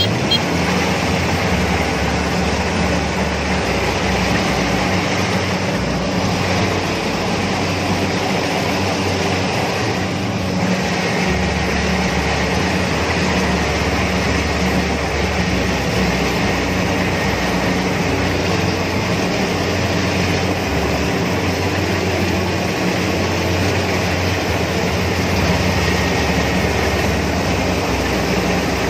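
Rice combine harvester running steadily as it cuts standing rice: engine and harvesting machinery together in a constant mechanical din, heard from the operator's seat.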